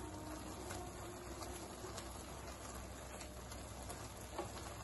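Wooden spatula stirring instant noodles in broth in a steel kadai: faint wet stirring with a few light taps against the pan.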